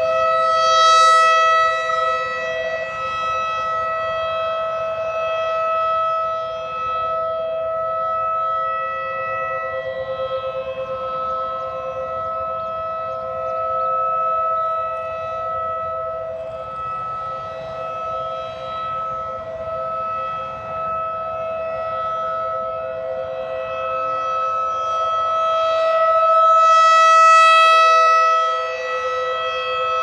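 Federal Signal 2001-DC rotating outdoor warning siren sounding a steady wail during a test, its tone swelling loudest about a second in and again near the end as the horn sweeps past. A second, more distant T-128 siren is blended in, so two steady pitches are heard together.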